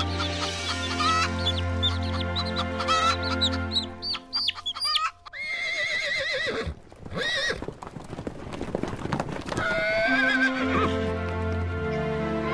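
Background music with steady bass notes, and an animal calling in wavering, high-pitched cries around the middle and again near the end.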